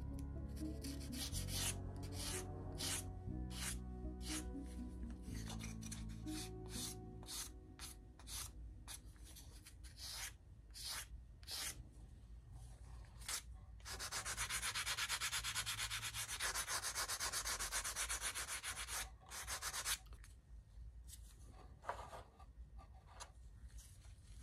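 Sandpaper rubbing across balsa wood. At first it goes in separate strokes about two a second, then in a fast, continuous stretch for about six seconds past the middle, then a few more strokes near the end.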